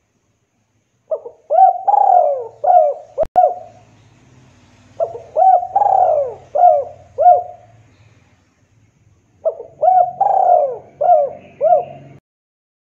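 Spotted dove cooing: three song phrases a couple of seconds apart, each a quick run of short coos around one longer coo that falls in pitch. A single sharp click comes about three seconds in.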